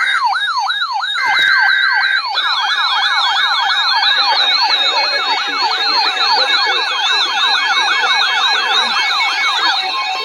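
Canadian Alerting Attention Signal: a loud electronic alert tone of rapidly repeating falling sweeps, several a second, announcing an Alert Ready emergency broadcast. Twice in the first two seconds a steady two-note tone cuts in. From about two seconds in, a second copy of the sweeps plays slightly out of step with the first. The sweeps stop just before the end, where steady beeps take over.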